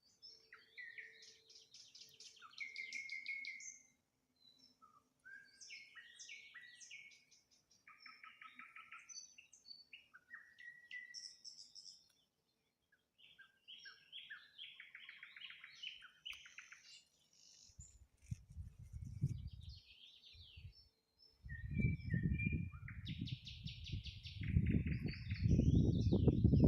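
Nightingale singing in separate phrases of rapid repeated notes and trills, with short pauses between them. About two-thirds of the way in, a low rumbling noise starts in gusts and grows until it is louder than the song.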